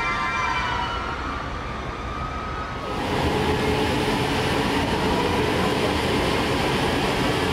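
Electric freight train on the rails: a high whine that sinks slightly in pitch, then, after an abrupt change about three seconds in, the steady rumble and rattle of the train running.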